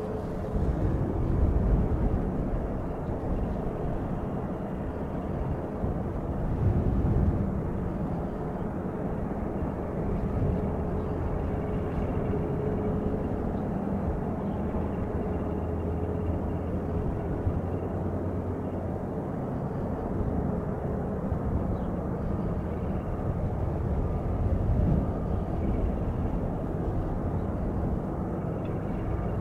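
Boeing 737-200's Pratt & Whitney JT8D turbofans running at low taxi power, heard from a distance as the jet lines up on the runway: a steady rumble with a faint high whine that comes and goes.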